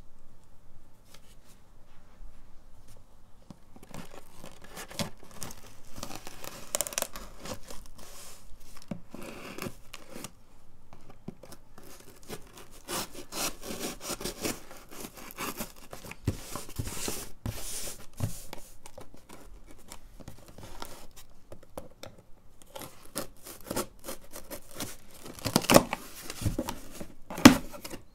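A folding knife's blade cuts and scrapes along packing tape on a cardboard box, with irregular rasping and tearing strokes. Near the end come two short, loud rips or knocks as the tape is torn and the flaps are pulled open.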